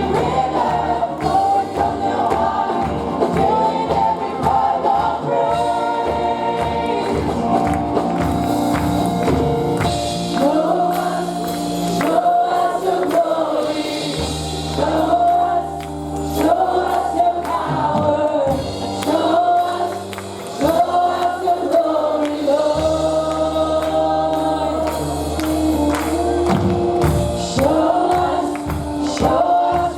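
Gospel worship song: a choir singing held, flowing melody lines over band accompaniment with a steady bass.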